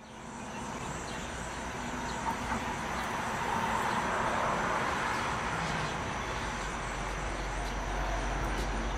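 Chicken drumsticks sizzling on the hot grate of a charcoal kettle grill over a basket of glowing coals: a steady hiss with a few faint pops, over a low steady rumble.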